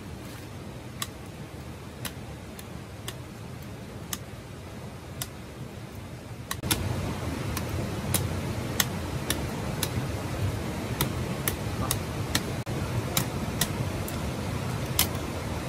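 Machete blade chopping into a bamboo stem, sharp knocks about once a second, coming faster from about halfway through, over a steady rushing background noise.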